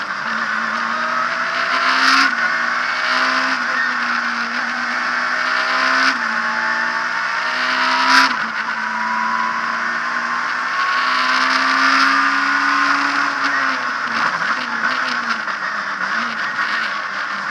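Abarth Punto S2000 rally car at racing speed, heard from inside the cockpit: its 2.0-litre four-cylinder engine climbs in pitch and drops sharply several times as the gears change. Sharp knocks come about two and eight seconds in, over steady road and tyre noise.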